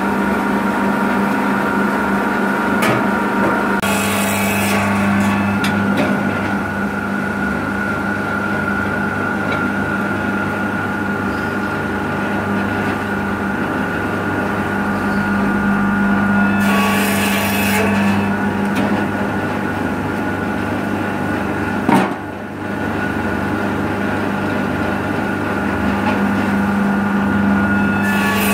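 Rosselli S-M650 saw bench, its 220 V single-phase electric motor and carbide-tipped (widia) circular blade running with a steady hum and whine. The blade cuts through branches twice, about four seconds in and again around seventeen seconds in, each cut a short rasping burst. A sharp click about twenty-two seconds in.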